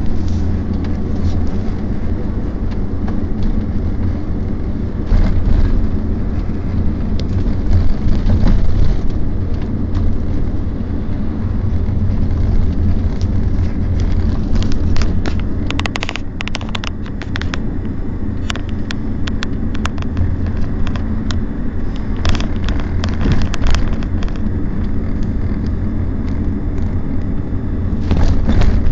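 Engine and road rumble heard inside a moving car's cabin, steady throughout, with a few short knocks scattered through it, most of them around the middle and near the end.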